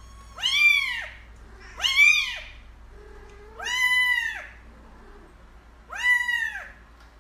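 A kitten meowing four times, about two seconds apart; each meow is a short high call that rises and then falls in pitch.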